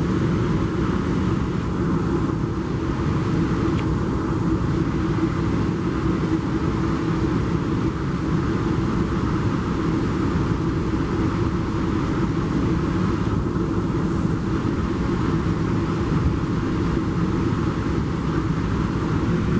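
Steady rumble of a Metrolink commuter train rolling along the track, heard from inside the passenger coach: an even running noise with no distinct wheel clicks.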